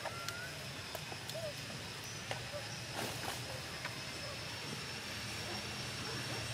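Outdoor background: a steady low hum like a distant engine, a thin steady high tone, scattered faint clicks, and a couple of brief faint chirps near the start.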